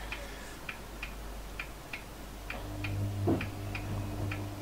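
Steady, even ticking, about three ticks a second. A little over halfway in, a low steady hum joins it.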